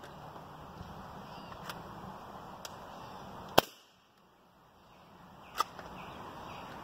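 Hatsan Invader Auto .25 calibre PCP air rifle firing: one loud, sharp crack about halfway in, and a second, quieter crack with a short ring about two seconds later. A few faint clicks come before the shot.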